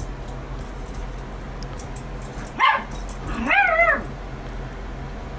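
A pet animal calling: a short, high cry about two and a half seconds in, then a longer cry about a second later whose pitch rises, wavers and falls.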